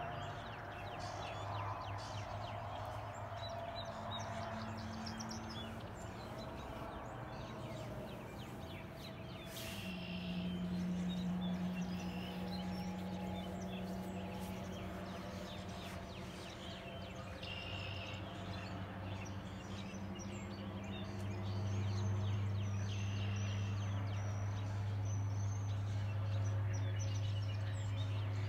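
Morning birdsong of several kinds, with one bird repeating a short song phrase every few seconds, over a steady low hum that grows louder near the end.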